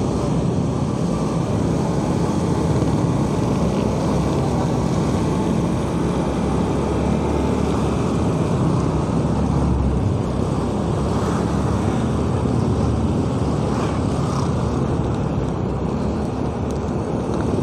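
Motorcycle riding along a wet street: steady engine hum and road noise from the tyres on the wet surface, with no sudden events.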